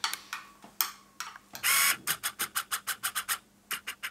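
A quick train of short, sharp clicks, about six a second, with a brief hiss about halfway through.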